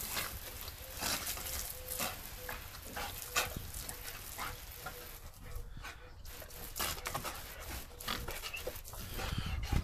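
Rottweiler puppy giving short barks and whimpers while snapping at water spraying from a garden hose, with the hiss of the spray.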